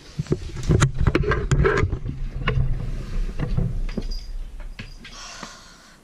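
Close rustling and a quick run of knocks and clicks over a low rumble, busiest in the first two seconds and dying away toward the end: the noise of hurried movement and handling during a scramble to get a caught bird away from a cat.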